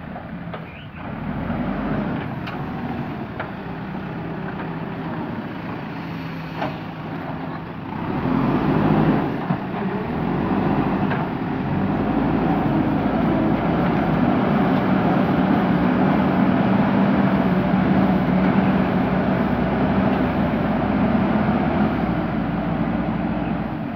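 Diesel engine of a JCB backhoe loader running, getting louder about a third of the way in and then holding steady. A few short metallic clanks come in the first half.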